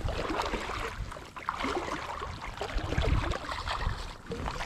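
Hooked brown trout splashing and thrashing at the water's surface as it is played in on a fly line, in irregular, uneven splashes.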